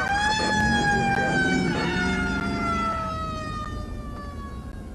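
Emergency siren sounding one wail: it rises quickly, then falls slowly over about four seconds, with a car's low rumble underneath.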